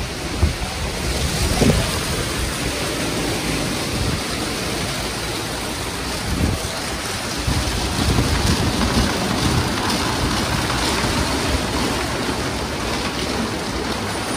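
Istobal M'NEX 22 rollover car wash running its tall rotating side brushes over a car's front and sides: a steady rushing wash noise with irregular low thuds.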